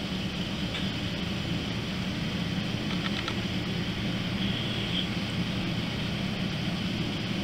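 Steady low machine hum with a constant hiss underneath.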